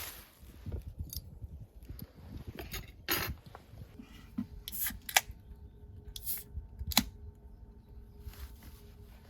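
Scattered sharp clicks and knocks of small objects being handled, the loudest a little after five seconds and at seven seconds, with a faint steady hum setting in about four seconds in.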